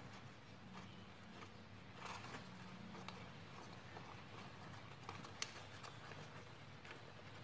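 Faint rustling and crinkling of a fresh banana leaf being folded around rice by hand, with a few light ticks and one sharper click about five seconds in, over a low steady hum.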